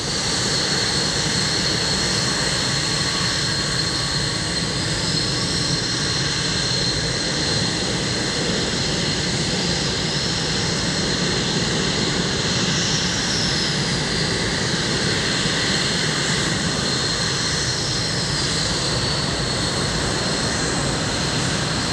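Jet engines running steadily: a constant high whine over a broad, even roar.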